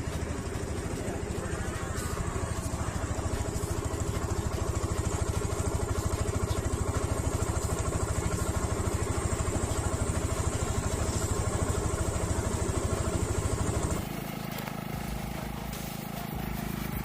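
Motorcycle engine running steadily at idle with a fast, even beat, which stops abruptly about fourteen seconds in, leaving a quieter background.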